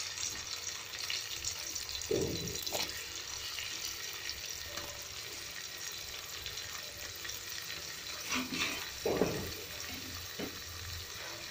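Hot oil sizzling steadily in a metal pan as chopped onions fry with cumin seeds, garlic and green chillies. Two brief louder knocks come about two and nine seconds in.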